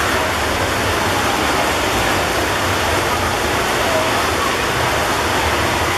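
Steady, loud wash of splashing from a freestyle race mixed with spectators' voices, echoing in an indoor pool hall.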